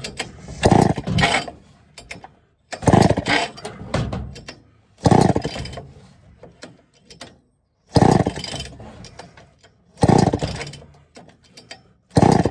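Homelite Super XL-923 82cc chainsaw being pull-started: six hard pulls on the recoil starter, about two seconds apart, each turning the high-compression engine over without it catching. Its compression release is broken, so every pull cranks against full compression.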